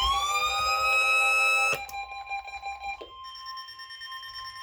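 Weather alert radios going off. One alarm tone swoops up in pitch, holds, and cuts off with a click a little under two seconds in. From about three seconds in, the steady single-pitch NOAA weather radio warning alarm tone sounds.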